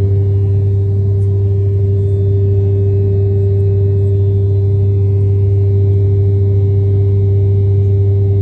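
Airliner cabin noise after takeoff: the jet engines and air system make a loud, steady drone with a strong low hum and a fixed tone above it.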